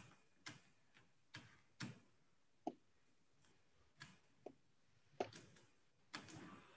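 Faint, irregular clicking and tapping from digital drawing at a computer: about a dozen sharp little clicks, spaced unevenly, over near silence.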